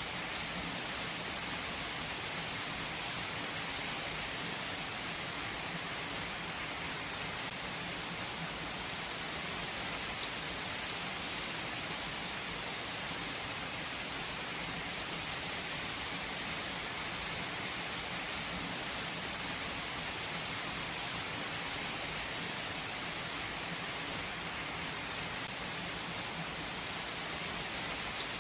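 Steady rain falling, an even hiss with faint scattered drop ticks and no change in strength.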